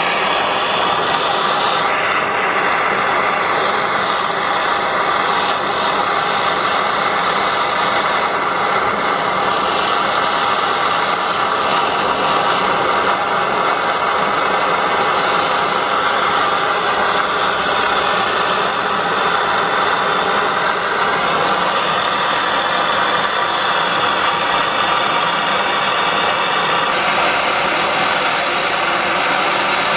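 Handheld gas blowtorch flame burning with a steady hissing roar, its tone shifting slightly near the end.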